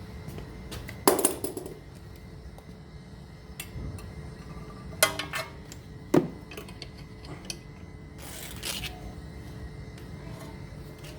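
Metal clinks and knocks from hand work on a car's front brake caliper and pads: a loud sharp knock about a second in, two more around five and six seconds, and a short scraping rustle near nine seconds.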